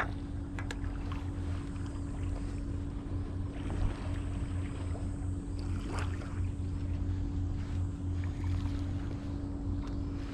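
A steady low motor hum with a constant drone running under it, broken by a few light clicks and knocks as the bait bucket and scoop are handled.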